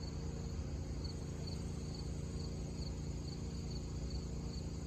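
Cricket chirping in a steady run, about two to three short high chirps a second, over a steady low hum.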